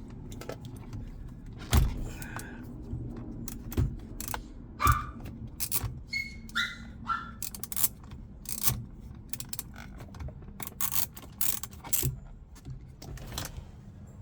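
Irregular metallic clicks, knocks and rattles of an 8mm socket wrench working loose a steering-wheel airbag retaining bolt, with a few short squeaks between about two and seven seconds in.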